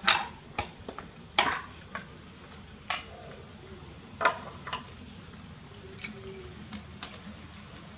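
Kitchen utensils and dishes clinking and knocking together: a series of sharp clinks, roughly one a second, over a low steady background.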